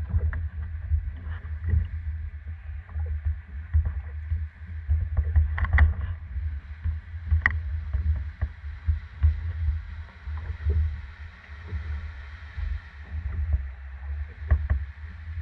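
H-60 hydroplane's engine idling as the boat moves slowly, a low uneven rumble with scattered light clicks.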